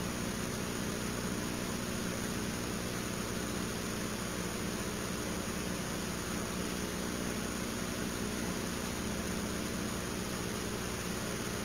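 Steady low hum with an even hiss over it, unchanging, with no distinct events.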